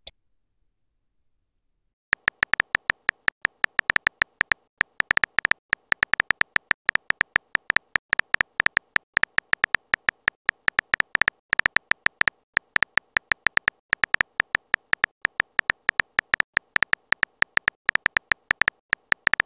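Texting-app keyboard sound effect: a fast run of short clicks, several a second, starting about two seconds in, one per letter as a message is typed out.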